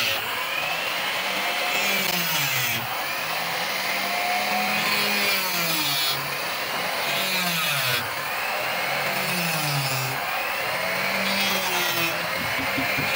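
Handheld electric plunge router running while its bit carves into a wooden panel; the motor's pitch drops again and again as it cuts.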